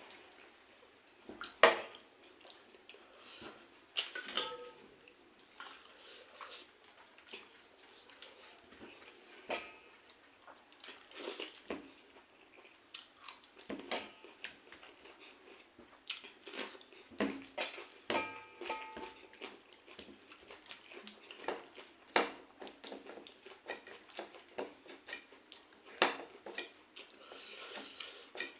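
Eating sounds: scattered clinks and taps on dishes, wet splashy sounds from pakhala, rice soaked in water, and chewing.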